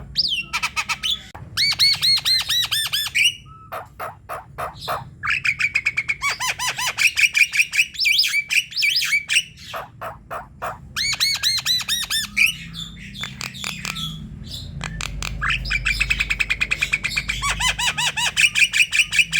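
Javan myna in full song: long runs of rapid, repeated harsh notes in four phrases with short pauses between.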